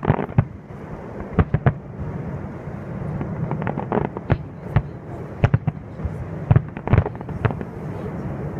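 Aerial fireworks bursting: a quick, irregular run of sharp bangs and cracks, some in clusters, over a steady background noise.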